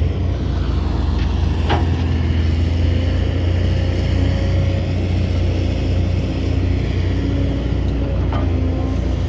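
Heavy diesel engine of earth-moving machinery running steadily with a deep rumble, with two sharp knocks, one about two seconds in and one near the end.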